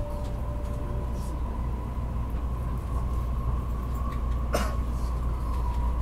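Steady in-cabin running noise of a Tokaido Shinkansen train at speed: a deep rumble with a faint steady whine above it. A single sharp click comes about four and a half seconds in.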